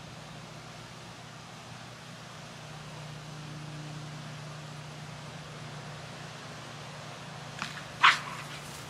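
An American bully gives a short, sharp, loud bark just as the ring toy is thrown, after a fainter one a moment before; a steady low hum sits underneath.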